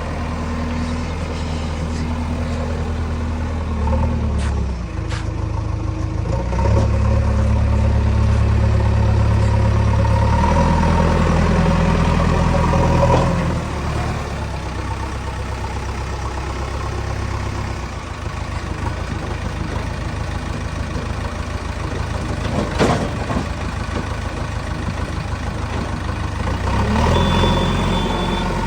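JCB 3DX backhoe loader's diesel engine running, its note stepping up and down as the hydraulics take load, loudest for several seconds in the first half. A single sharp knock comes later.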